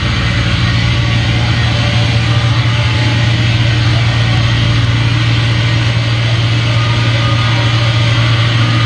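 A loud, steady low amplifier drone: one deep hum held without a break under a hiss of noise, with no drums playing. This is guitar or bass feedback left ringing through the amps after the last song of a grindcore/noise set.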